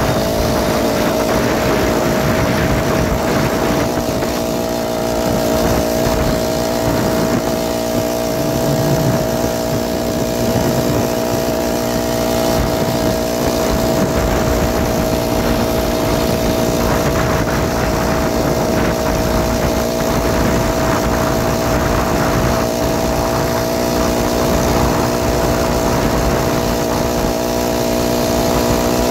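BikeBerry 49cc four-stroke motorized-bicycle engine running under way at a steady pitch, picking up slightly in the first second or so and then holding even.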